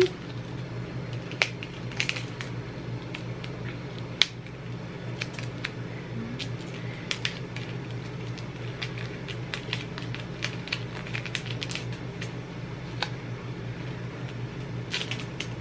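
Duct tape being pressed and wrapped by hand around an aerosol can of silly string: scattered small clicks and crackles from the tape and can, over a steady low hum.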